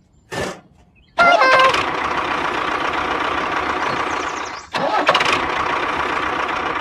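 An engine-like sound starting up about a second in with a stepped rise in pitch, running steadily, cutting out for a moment near the middle and starting up again.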